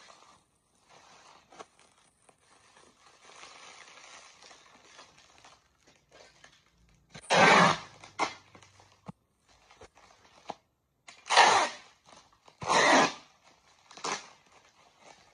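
Bubble wrap being folded and pressed by hand, crinkling. Soft rustling at first, then several short, loud crinkles in the second half.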